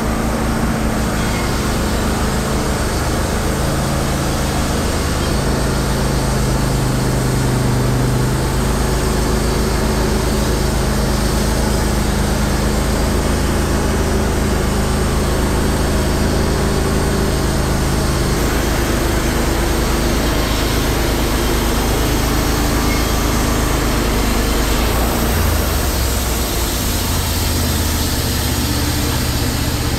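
Wood-Mizer LT15 Wide band sawmill running steadily, its band blade cutting lengthwise through a hemlock log as the head travels along the track. The low running note shifts about 25 seconds in.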